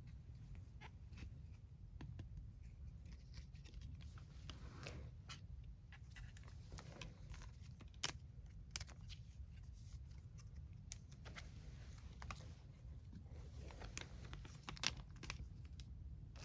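Merchandise packaging being handled and torn open by hand: faint rustling and tearing with scattered small clicks and taps, a few of them sharper.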